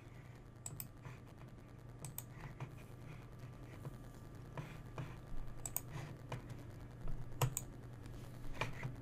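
Faint, scattered clicks of a computer mouse and keyboard, several in quick pairs, over a low steady hum.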